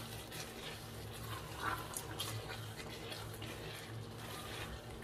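Faint stirring of a thick onion-and-tomato base simmering in an enamelled cast-iron pot: a silicone spatula scraping through it with light bubbling, over a steady low hum.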